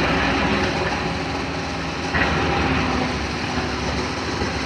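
Engine noise from road-construction machinery running steadily, with a brief louder swell a little over two seconds in.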